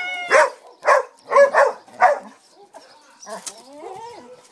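Springer spaniel barking excitedly, about five short sharp barks in quick succession, then a quieter whine that glides up in pitch near the end.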